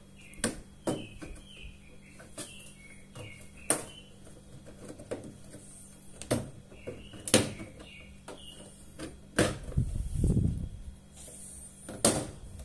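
Plastic back panel of a bottom-loading water dispenser being worked off by hand after its screws are out: sharp plastic clicks and snaps every second or two, with a scraping rattle about ten seconds in.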